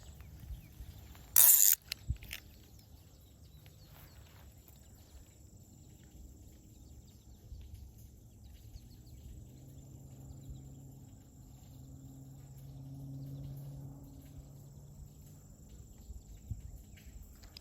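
Outdoor ambience with a steady, high-pitched insect trill. A short, loud noise comes about a second and a half in, and a faint low hum swells and fades through the middle.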